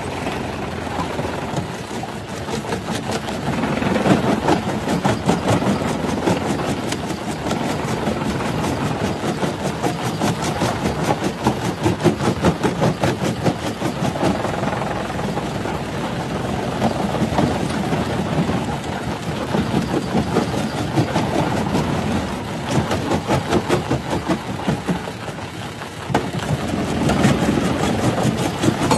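Jaw crusher running and crushing rock, a continuous heavy machine noise full of rapid cracking and clattering of stones. It gets louder about four seconds in and again near the end.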